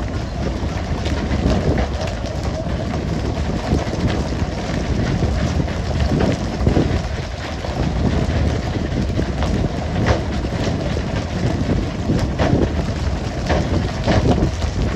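Fishing boat's engine running steadily under the hiss of water sprayed over the sea, with scattered knocks and slaps as skipjack tuna land on the deck.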